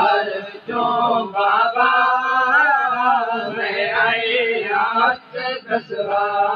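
Men's voices chanting a Punjabi noha, a Shia lament, in long held lines whose pitch wavers and bends, with a short break about five seconds in.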